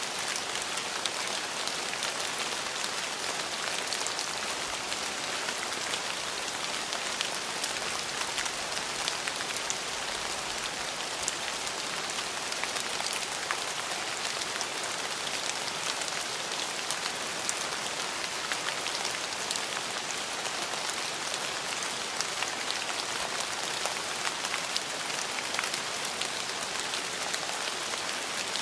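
Steady rain falling on a surface, an even hiss with many small drop ticks and no let-up.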